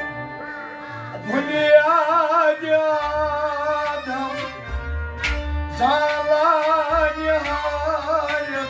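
Male voice singing a devotional song with a wavering vibrato, coming in about a second in over a bowed string instrument, with a drum beating underneath.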